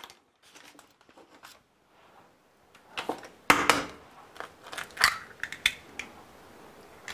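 Eggs being cracked: a few sharp taps and cracks of eggshell, the loudest about three and a half seconds in, after a nearly quiet start.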